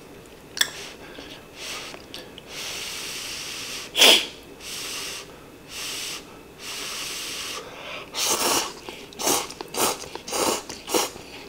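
A person slurping hot instant cup noodles: long airy draws with one sharp loud suck about four seconds in, then a quick run of short slurps in the last few seconds.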